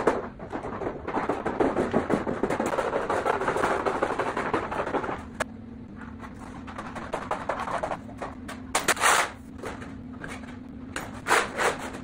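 Aviation snips cutting galvanized sheet metal: a fast, crunching chatter of short snips for about four seconds. After it stops there is a steady low hum, with a few short loud clatters of metal.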